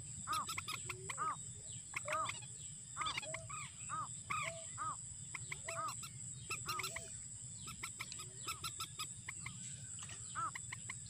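Birds calling over and over, each call a short rising-and-falling note with overtones, two or three a second, over a low steady hum.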